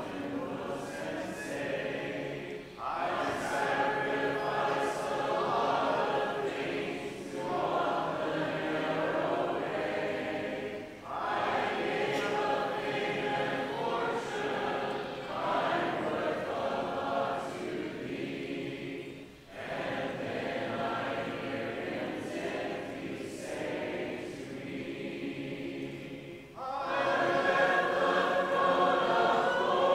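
A congregation singing a hymn together a cappella, without instruments, line by line with a short pause between phrases, growing louder near the end.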